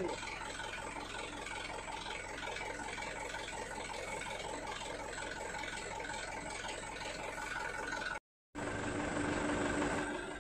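Tanker truck's engine idling steadily. It breaks off briefly about eight seconds in, and an engine hum with a slightly different tone carries on afterwards.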